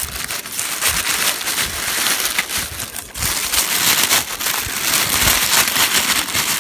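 Tissue paper crinkling and rustling loudly as hands unfold it in a gift box, with a brief lull about three seconds in.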